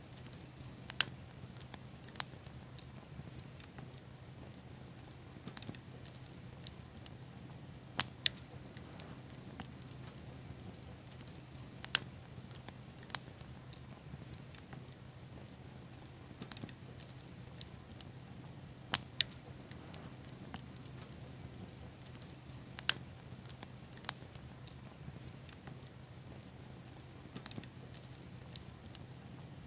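Small campfire burning, with sparse sharp pops and crackles, a dozen or so, some coming in quick pairs, over a faint steady low hum.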